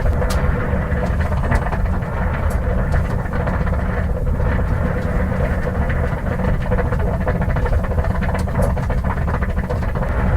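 1950 Ford six-cylinder engine idling steadily, with scattered light clicks over the running. The engine is overheating, its radiator water boiling up the hose.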